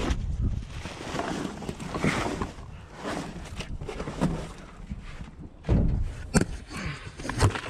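Scrap metal and junk being handled and sorted: irregular knocks, clunks and rustling as pieces are moved about and set down.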